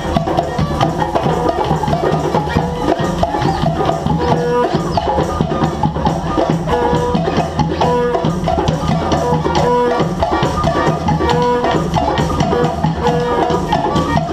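Live band music: dense drumming and hand percussion keep up a steady beat, with a short pitched note repeating in a riff over it.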